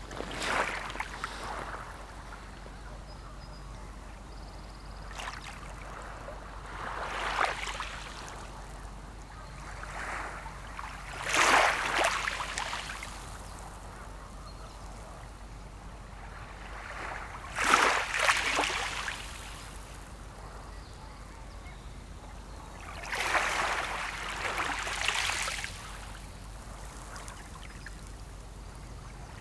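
Small sea waves breaking and washing onto the shore every few seconds, each surge swelling and fading. The loudest wash comes about two-thirds of the way through.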